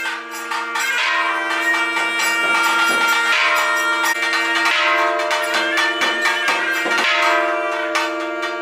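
Temple bells ringing rapidly, many strikes a second, over a steady reed-like drone of held tones.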